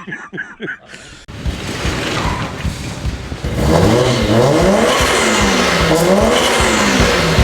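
A car engine revving up and down repeatedly over a loud rushing noise, which starts about a second in.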